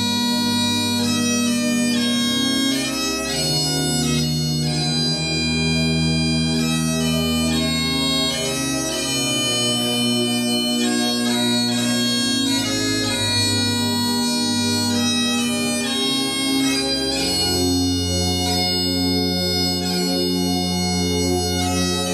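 Great Highland bagpipes playing a slow air: long held melody notes over steady drones, changing pitch every second or two.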